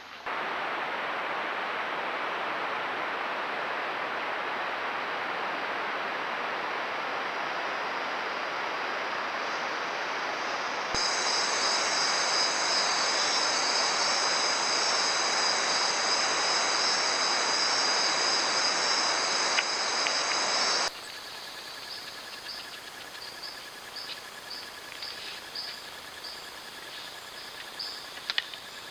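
Steady heavy hiss of rain in the rainforest. About ten seconds in, a loud high-pitched insect chorus joins it. Near the end the hiss cuts off abruptly, leaving a quieter forest with a steady insect trill and short bird chirps.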